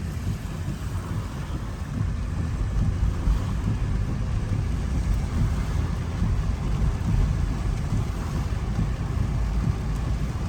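Steady low rumble of a car driving through shallow floodwater, heard from inside the cabin: engine and tyre noise with a wash of water. It gets a little louder about two seconds in.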